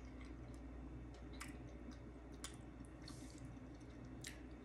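Faint, scattered clicks and scrapes of a metal fork against a plate as spaghetti is twirled and lifted, over a low steady hum.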